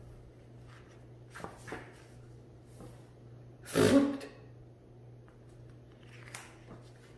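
Picture-book pages rustling as they turn, then about four seconds in a short, loud, spluttering 'thwptt' made with the mouth, imitating a vacuum cleaner sucking something up. A faint steady hum runs underneath.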